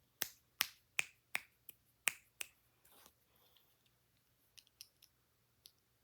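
Plastic Lego bricks clicking as they are handled and pressed together. It starts with a quick run of sharp clicks, two or three a second, then a few faint ones near the end.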